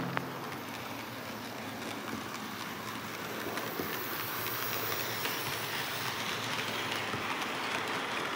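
Märklin H0 model steam locomotive and coaches running on Märklin C track: a steady rolling rattle of the locomotive's motor and the wheels on the rails, growing a little louder as the train nears.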